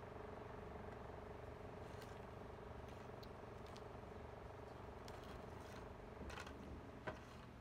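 Faint clicks and taps of a toddler handling Fita crackers on a plate, a few scattered ones with a sharper click about seven seconds in, over a steady low hum.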